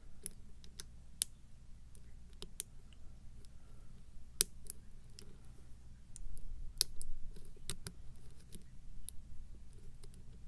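Lock pick working the pins of a pin-tumbler challenge lock under tension: an irregular scatter of small sharp clicks as the pins are lifted and set.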